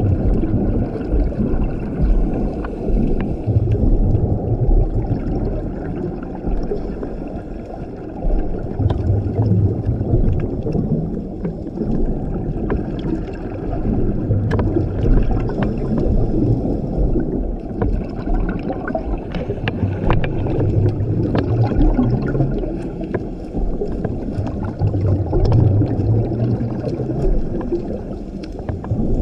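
Scuba regulator breathing underwater: a hissing inhale through the regulator alternating with a rumble of exhaled bubbles. The bubble rumbles swell about every five to six seconds, with scattered faint clicks throughout.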